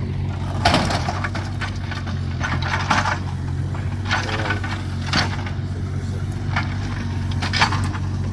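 An engine running steadily at a low, even pitch, with irregular clanks and knocks of scrap metal being handled, four or five of them sharper than the rest.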